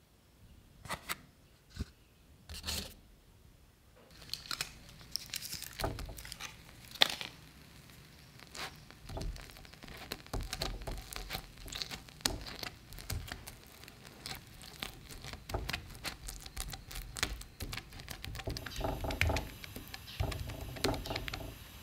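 A few sharp crinkles of a cheese wedge's foil wrapper being peeled. Then, from about four seconds in, a run of dense, irregular crackling and ticking as the rice paper crisps in the pan under the egg topping, along with the scraping of a spoon spreading the soft cheese.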